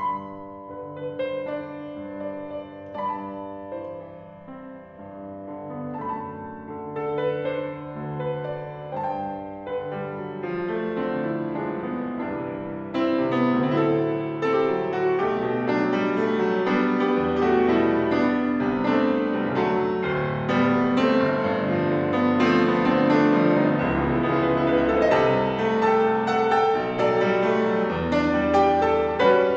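Petrof grand piano played solo: an Argentine zamba, starting softly and growing louder and fuller about halfway through.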